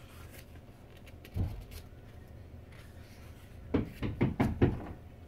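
Hammering from roof repair work: one dull knock about a second and a half in, then a quick run of four or five knocks near the end.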